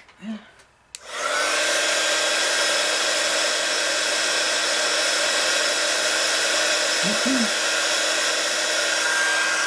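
Handheld craft heat gun switched on about a second in, its motor whine rising quickly to a steady pitch over a rush of blowing air, running steadily to dry fresh acrylic paint on a teabag, then cutting off at the end.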